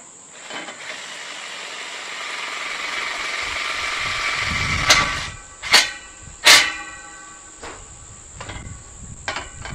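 Cordless screw gun running steadily for about four seconds as it drives a screw through a gate hinge into the aluminium gate frame, growing louder as the screw goes in. Then three sharp knocks about a second apart.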